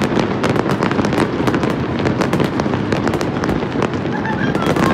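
Dense New Year fireworks display: many shells bursting at once, a continuous rapid crackle of pops over a steady rumble of booms.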